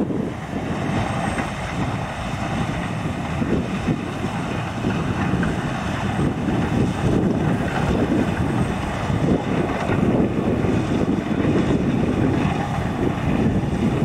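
Claas Lexion 770 Terra Trac combine harvester running steadily under load while harvesting corn, engine and threshing machinery together as one continuous drone. Wind buffets the microphone.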